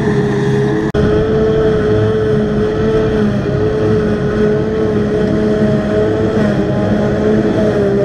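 Claas Jaguar 840 self-propelled forage harvester working in a grass swath, a steady, loud engine and chopper drone with a constant whine, and no change in load. The sound cuts out for an instant about a second in.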